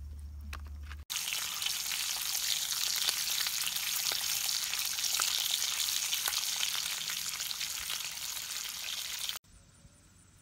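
Bacon strips frying in a black wok-style pan on a propane camp stove: a dense sizzle full of small crackles and pops. It cuts in abruptly about a second in, after a brief low hum, and stops abruptly near the end.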